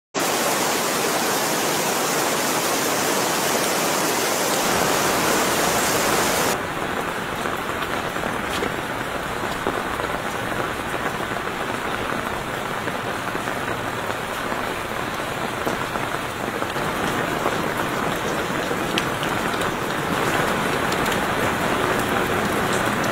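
Steady rain falling, an even hiss. About six and a half seconds in the sound changes abruptly and turns duller as the highest part drops away, then carries on steadily.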